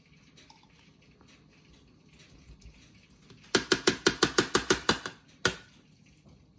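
A small metal spoon rapping quickly against the rim of a bowl to knock hot pepper paste off it: about a dozen sharp clicks in a second and a half about halfway through, then one last tap.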